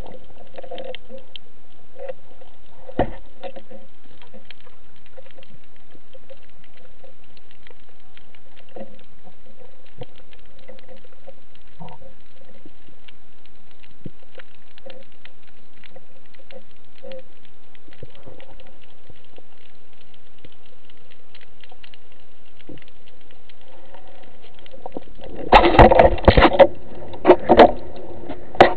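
Underwater ambience heard through a camera housing: a faint, steady crackle of small clicks and ticks, with one sharper knock about three seconds in. Near the end comes a cluster of loud rushing, knocking bursts as the diver moves and air bubbles pass.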